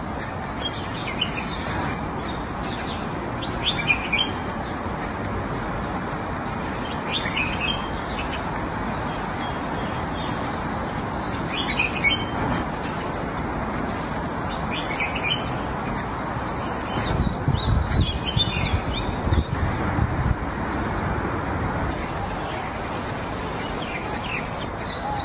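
Small birds chirping in short scattered calls over a steady outdoor hiss, with a giant panda crunching and chewing fresh bamboo shoots; a run of louder crunches comes about two thirds of the way through.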